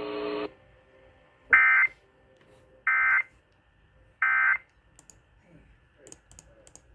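Emergency Alert System end-of-message data bursts over the radio: three short, identical buzzy bursts about 1.3 seconds apart, marking the end of the severe thunderstorm warning. A steady sound cuts off just before them, and faint clicks follow near the end.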